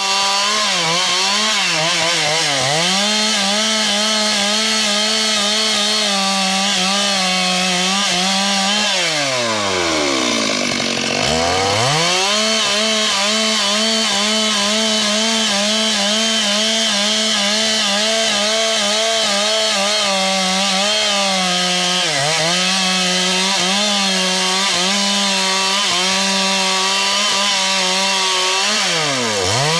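Two-stroke chainsaw running at full throttle cutting through wood, its engine pitch dipping briefly every so often. About nine seconds in the revs drop right down toward idle, then climb back to full throttle.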